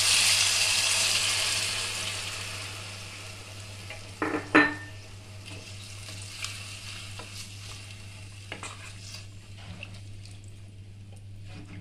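Water poured into a hot pan of oil-fried vegetables and spice paste hisses loudly at first and dies down over a few seconds. A wooden spatula then stirs the vegetables, with two knocks just after four seconds and light scrapes and clicks after.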